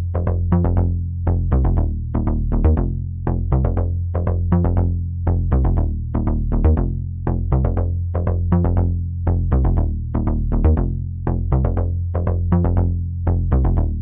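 Tech house music: a drum-machine beat of evenly repeated hits over a steady, heavy bass line.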